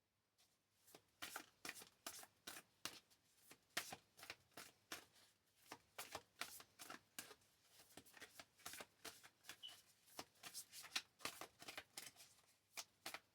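Tarot cards being hand-shuffled: a quick run of soft card slaps and clicks, several a second, with a couple of brief pauses.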